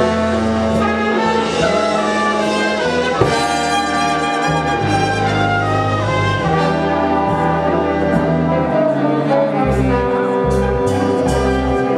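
Instrumental music led by brass, with sustained horn chords over a moving bass line.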